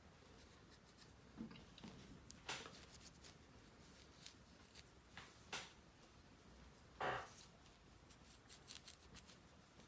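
Polishing cloth rubbing and handling on a sonic screwdriver prop: a few faint, short rubbing strokes, the loudest about seven seconds in, and a handful of light clicks near the end.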